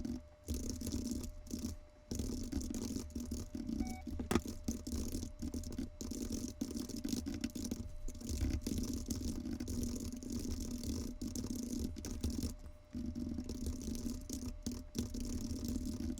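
Computer keyboard typing, fast-forwarded so the keystrokes run together into a continuous buzzing rattle, with many brief dropouts and a faint steady hum underneath.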